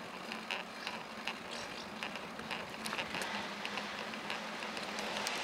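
Touring bicycle rolling downhill on asphalt: tyre noise with scattered light clicks and rattles from the bike, over a faint steady hum.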